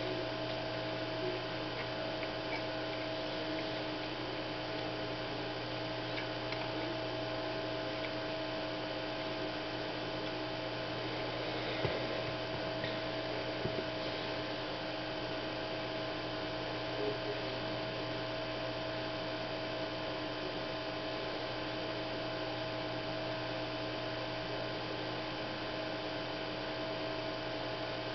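Steady electrical hum with a low drone and a couple of higher tones held level throughout, and a few faint clicks about twelve, fourteen and seventeen seconds in.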